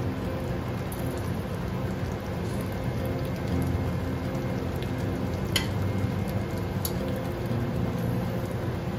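Chopped cabbage frying in a non-stick pan over a gas burner at medium heat: a steady sizzle with a low hum underneath. Two brief sharp ticks come a little past the middle.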